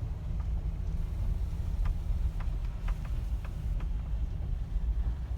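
Car cabin noise while driving: a steady low rumble of engine and road, with a few faint, irregular clicks between about two and four seconds in.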